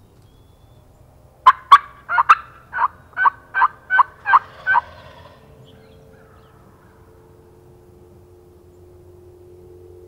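A run of about ten loud turkey yelps, evenly spaced at roughly three a second, starting about a second and a half in and lasting about three seconds.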